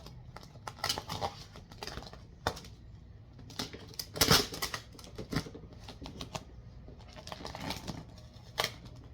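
Vinyl wrap film being worked onto a car's front bumper by hand: irregular small clicks, taps and crinkly rustles of the film, with a louder rustle about four seconds in, as the tension is worked out of the vinyl.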